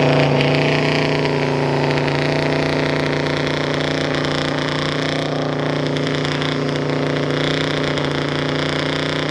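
Pickup truck doing a burnout: its engine held at one steady pitch while the rear tyres spin on the pavement.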